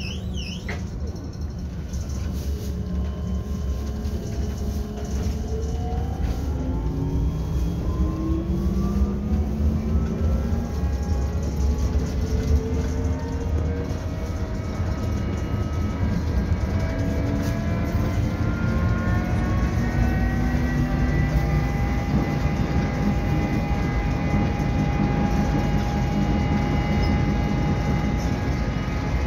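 LAZ E183A1 trolleybus accelerating: its electric traction drive whines, several tones climbing in pitch together for about twenty seconds and then holding steady. Underneath runs a low road and body rumble.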